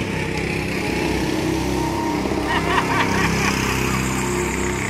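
Go-karts' small petrol engines running as the karts drive round the track, growing louder around the middle as one kart passes close by.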